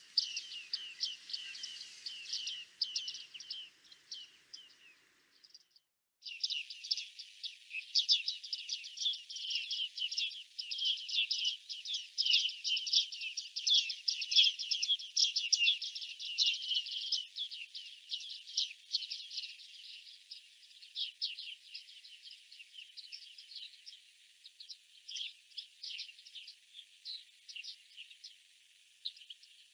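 Bearded tits calling: a dense, rapid run of short high call notes, the sound cutting out briefly about six seconds in, and the calls thinning out toward the end.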